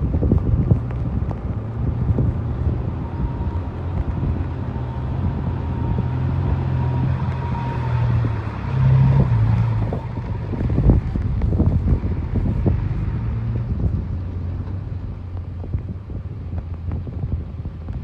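Dump truck engine running with a steady low hum that rises briefly in pitch about nine seconds in and then settles, with wind buffeting the microphone.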